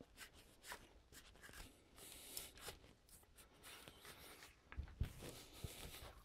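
Faint rubbing of a cleaning rag wiped over the front of a Taurus revolver's cylinder, with a few soft knocks of the revolver being handled near the end.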